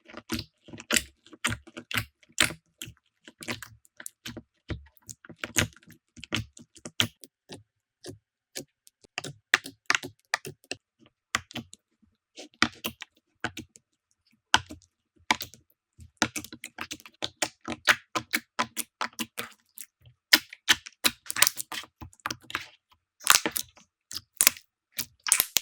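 Slime being pressed and squeezed by hand, giving dense, irregular crackling and clicking with a few short pauses.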